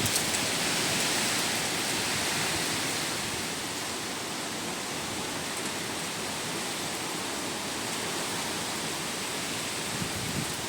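Heavy wind blowing steadily as a continuous rushing hiss, easing slightly after about three seconds.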